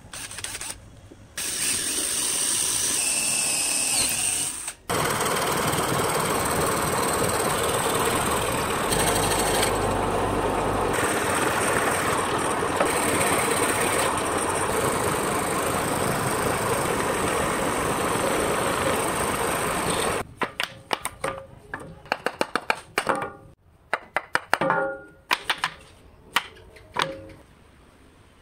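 Electric scroll saw running steadily as its thin blade cuts a car profile out of a cypress block, stopping about twenty seconds in. Then scattered clicks and light knocks of an angle grinder being handled as a sanding backing pad is fitted to its spindle.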